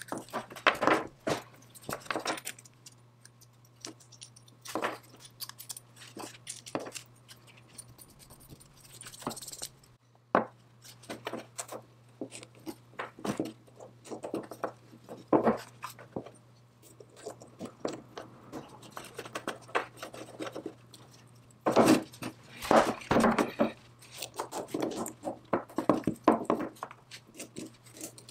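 Small steel and cast-iron belt lacer parts clinking and clicking against each other as they are fitted together by hand, with occasional knocks as pieces are set down on a wooden bench; irregular taps with a few louder clacks, over a faint steady hum.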